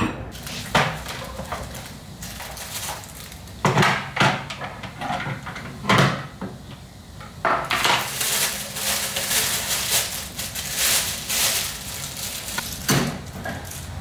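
Hard plastic and metal coffee-machine accessories being handled and set down on a countertop: a few separate clunks in the first half. Then several seconds of plastic wrapping crinkling as a plastic-wrapped tray is handled, and one more clunk near the end.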